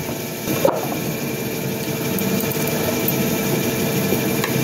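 A steady mechanical hum with an even hiss, like a small motor running.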